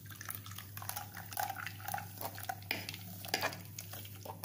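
Wooden spatula scraping wet ground coconut paste out of a steel mixer jar into a cloth-lined strainer, with light scrapes and taps against the metal and the paste slopping into the strainer.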